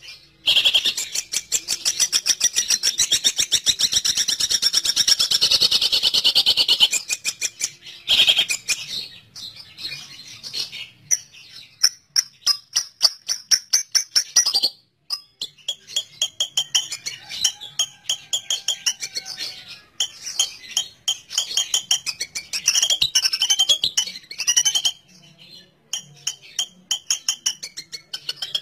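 Long-tailed shrike (cendet) giving a fast run of harsh chattering calls, the kind of call played to lure shrikes. The chatter is broken by short pauses about 8, 15 and 25 seconds in.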